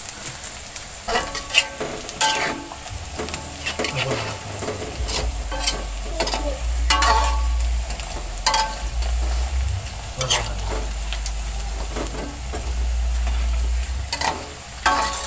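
Tempeh pieces sizzling as they fry in oil in a steel wok, with a metal spatula scraping and clinking against the pan again and again as the pieces are stirred and turned. A low steady rumble runs underneath from about three seconds in.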